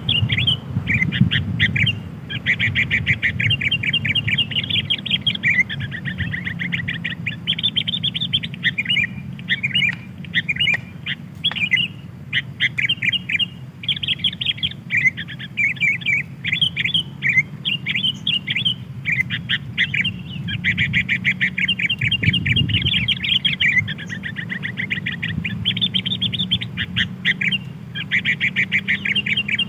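Sooty-headed bulbul (kutilang) calling: quick runs of bright chirping notes, repeated almost without pause, over a low steady hum. It is a bulbul lure call, used to draw wild bulbuls in.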